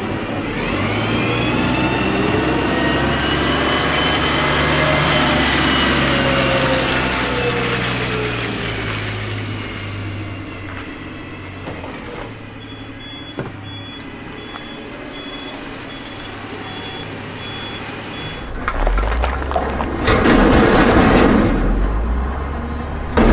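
A garbage truck's engine and hydraulic packer run with a low drone while a container of trash is tipped into the hopper; the engine's pitch rises, then slowly falls back over several seconds. A high, steady beeping comes in for a few seconds past the middle. Near the end, a loud rumbling whoosh sound effect begins.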